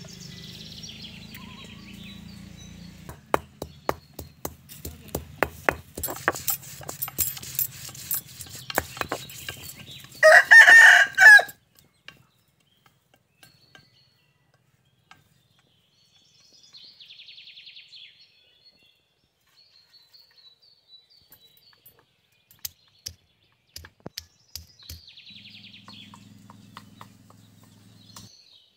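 A rooster crows once, loudly, about ten seconds in. Before it comes a run of sharp knocks, stone on stone, from a roller on a flat grinding slab.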